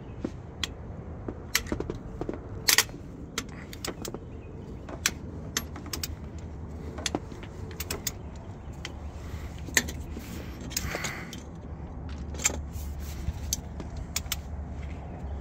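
Scattered, irregular metallic clicks and clinks from a long breaker bar and socket extension working the cylinder head bolts of a Detroit Diesel Series 60 12.7 engine, over a steady low rumble.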